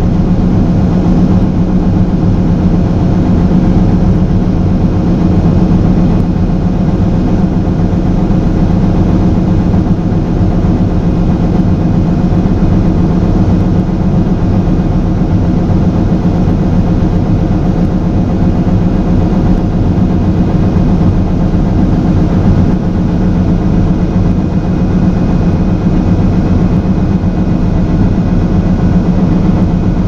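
Heavy diesel farm machinery running steadily at a constant engine speed: a loud, even drone with no change throughout.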